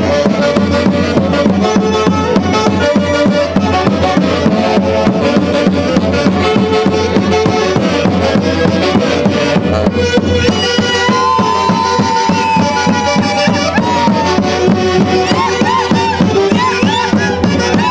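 Andean orquesta típica from the Huancayo region playing traditional dance music, with a steady drum beat under the melody instruments. A melody line holds one long note about eleven seconds in.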